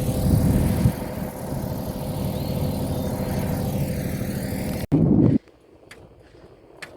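A motor running steadily with many even overtones, cut off abruptly about five seconds in. A brief loud burst follows, then a much quieter stretch with a few light clicks.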